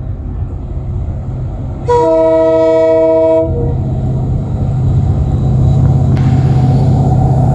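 WDG4 diesel locomotive sounding its air horn once for about a second and a half, a chord of several tones, about two seconds in. Under and after it, the locomotive's two-stroke diesel engine runs with a low rumble that grows louder as the train approaches.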